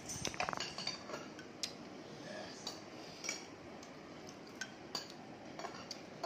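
Metal fork and spoon clinking against a plate: a quick cluster of light clinks in the first second, then single scattered clinks.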